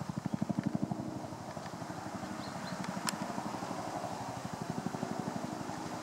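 Low, rapid, even throbbing of an engine in the background, strongest about half a second in. A few faint high chirps and one sharp tick come near the middle.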